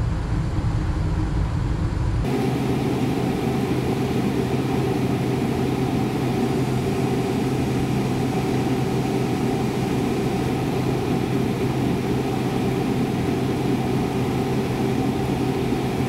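Two-stage induced-draft gas furnace with low-NOx burners running steadily: a continuous mechanical hum from the inducer, burners and blower. The hum shifts in character about two seconds in, with less deep rumble and a stronger mid-range drone.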